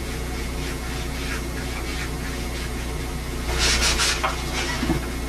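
Watercolour brush stroking across rough, heavy watercolour paper in faint, scratchy strokes over a steady tape hiss and hum, with a louder rushing noise of under a second about three and a half seconds in.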